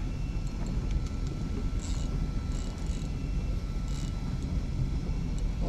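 Boat engine idling steadily under a low rumble of wind and water, with a few brief hissing sounds.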